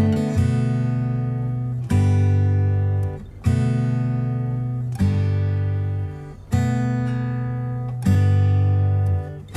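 Background music: an acoustic guitar strumming chords, a new chord struck about every second and a half and left to ring out.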